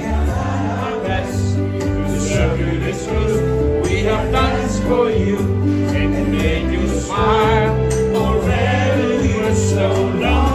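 Music: a song with a singing voice over a bass line of held notes.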